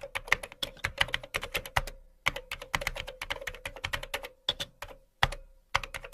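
Rapid keyboard typing clicks, used as a sound effect for on-screen text being typed out letter by letter. The clicks come in quick runs with brief pauses about two seconds in and again about five seconds in.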